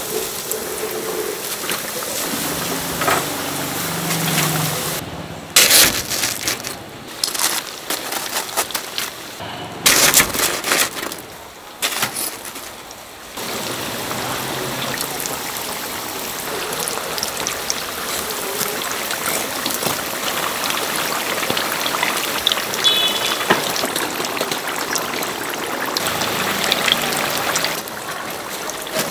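Croquette toast sandwiches sizzling steadily in a vat of hot frying oil. From about five seconds in, a run of sharp knocks and clatter for several seconds as metal tongs and a wire skimmer are worked in the fryer.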